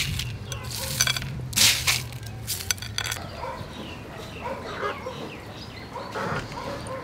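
Chickens clucking in the background, with a few short, sharp rustling crunches in the first three seconds.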